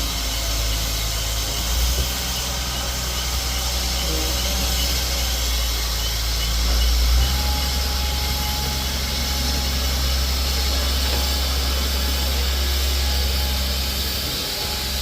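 Steam train noise: a steady low rumble under an even hiss.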